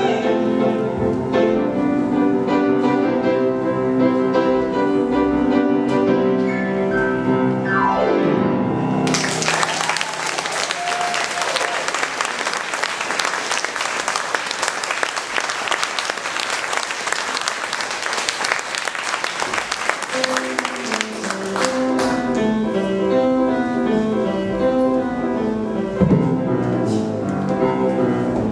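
Piano-accompanied music ends with a quick downward sweep about eight seconds in, followed by an audience applauding for about thirteen seconds. The piano then starts playing again near the end.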